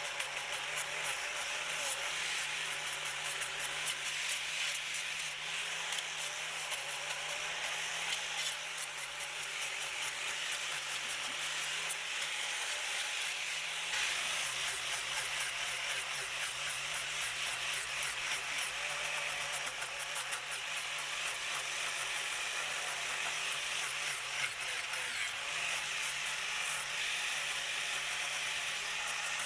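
Small handheld power tool running steadily as it grinds and sands the carved pine wood of a chainsaw-sculpted Christmas tree, with a steady motor hum under a rasping grind.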